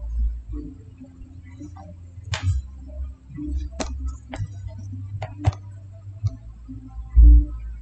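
Computer mouse clicking about five times, spread over a few seconds, over a low steady hum, with one dull thump near the end.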